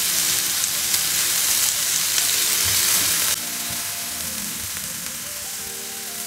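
Cubes of chicken breast sizzling in olive oil in a hot frying pan while being turned over with tongs. The sizzle drops a little in loudness about a third of the way in.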